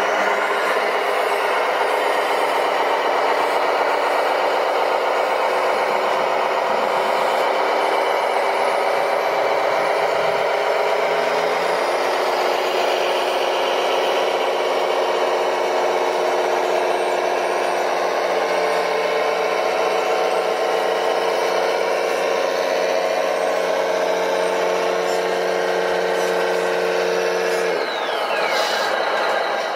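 Scale-model RC truck's engine-sound module playing a heavy diesel truck engine running under load. Its note shifts about twelve seconds in, and it cuts off abruptly just before the end.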